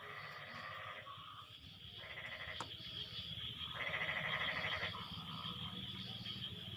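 Frog chorus. Three rapid pulsed, bleating calls of about a second each stand out over a steady high-pitched chorus and a fast, low croaking underneath.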